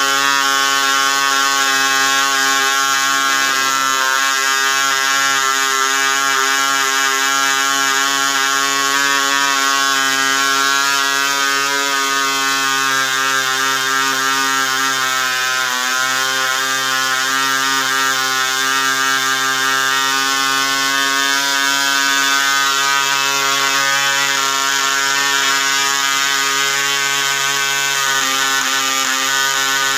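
Model airplane two-stroke diesel engine running on a bench-test stand, a steady high-pitched buzz. Its pitch dips briefly about halfway through and shifts again near the end.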